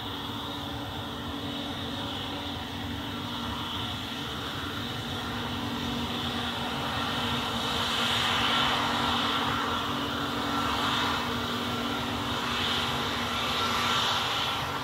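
Airbus A321neo's twin turbofan engines running at taxi power, a steady whine with a hiss over it, swelling louder around the middle and again near the end as the jet turns.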